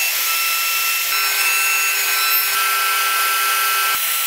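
Shaper Origin handheld CNC router running and milling a pocket into wood, a steady high-pitched whine with cutting noise.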